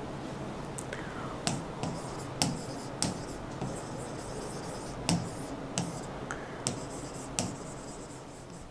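A stylus writing on an interactive screen: a series of sharp, irregular taps with light scratching between them.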